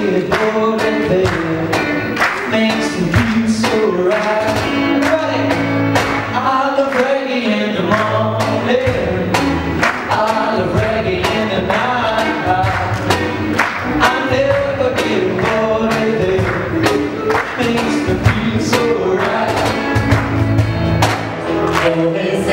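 Live acoustic band: acoustic and electric guitars over a steady cajón beat, with several male voices singing together.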